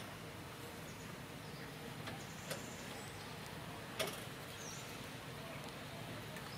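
Steady outdoor background hiss with two short sharp clicks about a second and a half apart, and a faint high chirp.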